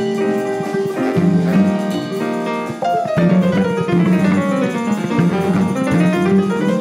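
Big band playing jazz-funk, with grand piano, guitar and drum kit. About three seconds in, a sliding note falls in pitch and then climbs back up.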